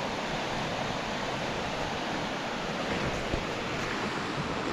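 River rapids in a rocky canyon rushing steadily below, a continuous even noise, with one faint tap a little past three seconds in.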